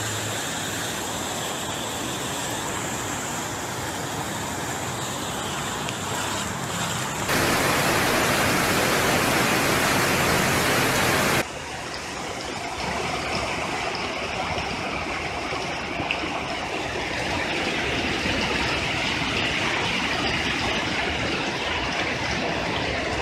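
Fast-flowing floodwater rushing, a steady noise of water with no pitch to it. It jumps louder for about four seconds in the middle, then drops back.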